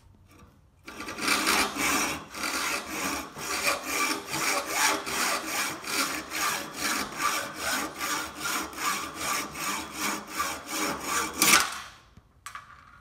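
Hand hacksaw cutting through a metal spacer tube clamped in locking pliers, loud, with steady back-and-forth strokes at roughly three a second for about eleven seconds. The strokes stop when the piece is cut through, and a brief clink follows.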